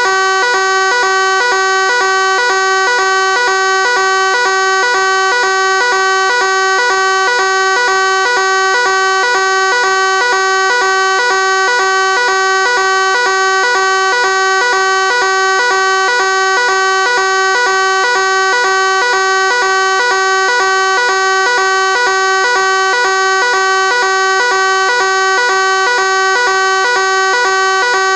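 Fire alarm sounding continuously: a loud, harsh buzzing tone held at one pitch, with a fast, even pulsing and no rise or fall.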